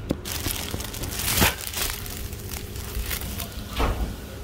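Clear plastic bread bag crinkling and rustling close to the microphone in a run of irregular crackles, the loudest about a second and a half in.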